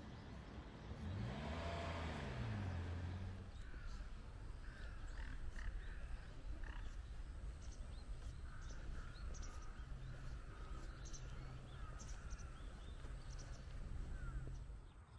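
Faint outdoor ambience in an open field. A brief rise in level with a sliding low drone, like something passing, comes about two seconds in. After it, scattered short chirping calls of small animals play over a low steady hum.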